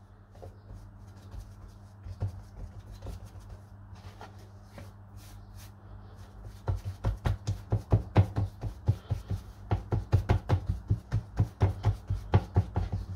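Fingertips pressing and patting medium-soft flatbread dough flat on a floured wooden chopping board: faint handling and rubbing at first, then from about halfway a quick run of soft thumps, about five a second.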